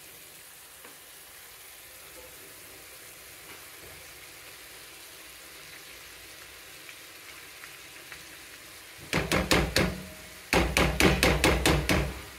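Salsa simmering in a frying pan with a steady, soft sizzle. About nine seconds in come two runs of quick, loud knocks and clatter against the pan, the second lasting nearly to the end.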